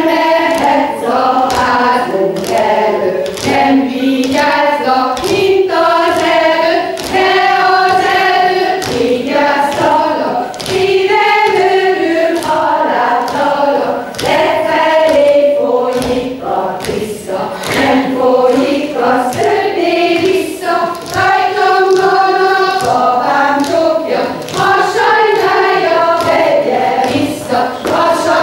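A group of women singing a Hungarian folk karikázó song together without instrumental accompaniment. The light knocks of the dancers' shoes stepping on the stage come through under the singing.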